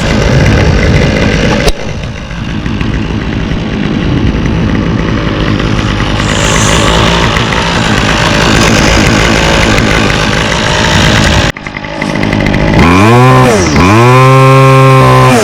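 Toro 51936 string trimmer's 25cc two-stroke engine running at high revs. After a brief break near the end it is revved with the throttle let off and opened again, the pitch dipping and climbing back twice.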